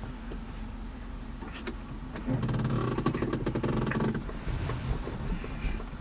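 A motor vehicle running, growing louder for about two seconds in the middle, over a steady low rumble with a few faint clicks.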